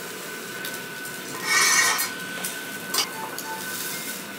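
Thick salted slices of beef skirt (harami) sizzling on a yakiniku mesh grill over the flame, the hiss swelling louder for about half a second near the middle. A sharp click of metal tongs on the grill about three seconds in.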